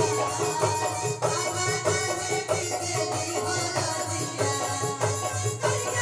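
Music with a steady percussive beat, about two strikes a second, under a sustained melody.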